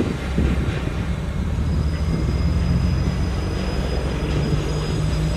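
Diesel-electric locomotive hauling a passenger train as it slows to stop at a station: a steady, low engine rumble with the rolling of the coaches, and a faint, thin high squeal that joins about two seconds in.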